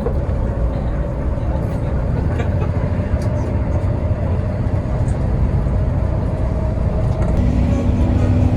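Hino RK8 tour bus running, a steady low engine rumble.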